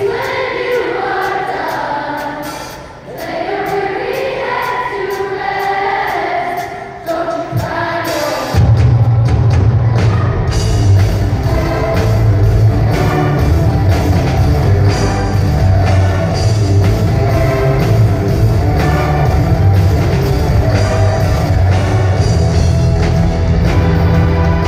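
Live rock-style orchestral song: voices sing a melody over light accompaniment, then about eight seconds in the full band comes in loud, with heavy bass and drums under the string orchestra.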